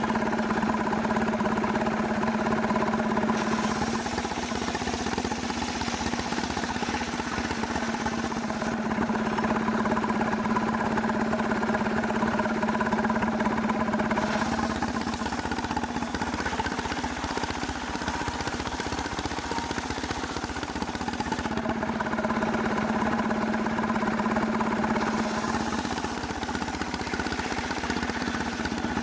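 Stihl chainsaw engine running steadily while milling a hard cemara log, with a high hiss that comes and goes several times.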